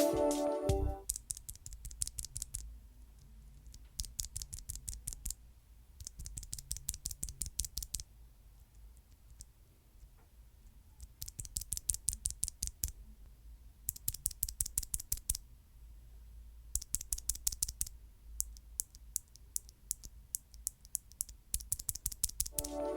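Keys of a Nuphy Air60 low-profile mechanical keyboard with Gateron low-profile Red linear switches being pressed in quick runs, about ten key clicks a second, seven runs with short pauses between. Background music fades out about a second in.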